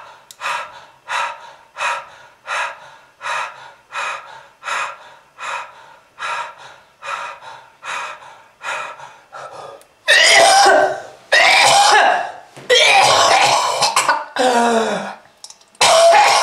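A person coughing. First comes a long, even run of short coughs, about three every two seconds. From about ten seconds in, these give way to loud, drawn-out, harsh hacking coughs with a strained, rasping voice.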